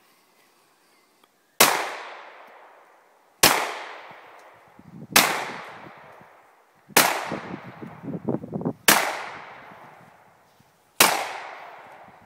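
Six single shots from a 1911 pistol fired one-handed, spaced about two seconds apart, each followed by a long echo that dies away slowly.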